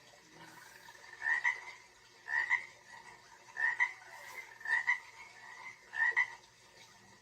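A recorded frog-croaking nature sound played through the wake-up light's small built-in speaker: five croaks, about one every second.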